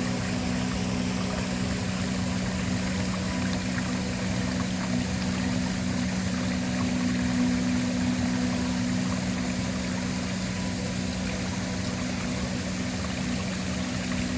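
Waterfall rushing steadily, with a low steady drone of ambient background music held underneath.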